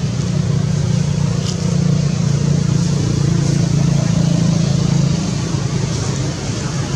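Steady low engine rumble of a motor vehicle running, which eases slightly after about five seconds.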